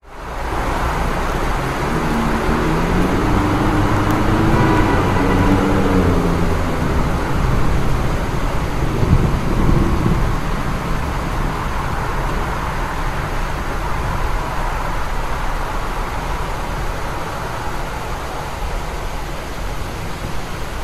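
Heavy rain falling on a city street, a steady hiss, with road traffic in it. A vehicle's engine rises and falls in pitch as it passes a few seconds in, and another low swell comes near the middle.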